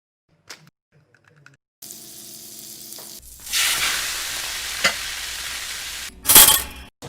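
Food sizzling in a frying pan for a few seconds, with a short louder burst near the end. Before it starts, a quieter steady hum with a few faint tones.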